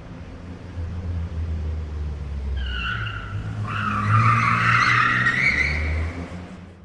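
Car engine running under a tyre skid: a squeal starts about two and a half seconds in, swells into a loud tyre screech and stops about a second before the end.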